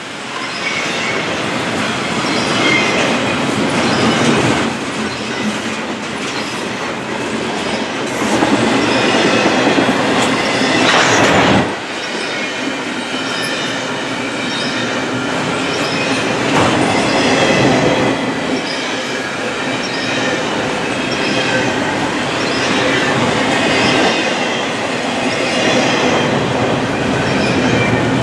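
Intermodal freight train rolling by, its steel wheels clicking steadily over rail joints with faint wheel squeal, rising to full loudness in the first second.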